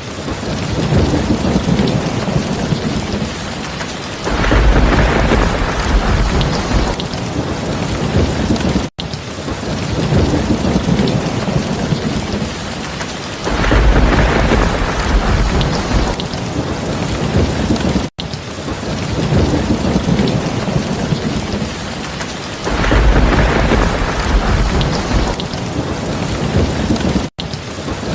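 Steady rain falling, with a low rumble of thunder swelling up three times, about every nine seconds. The sound cuts out for an instant between the repeats.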